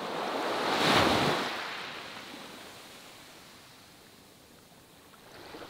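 A single rush of noise, like a whoosh, that swells to a peak about a second in and then slowly fades away over the next few seconds.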